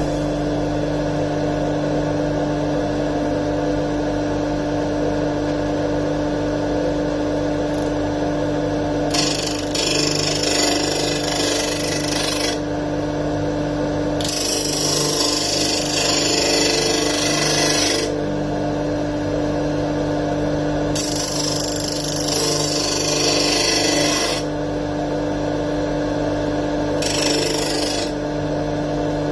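Disc sander motor running steadily, with a piece of wood pressed against the spinning abrasive disc four times; each pass adds a loud sanding hiss lasting a few seconds.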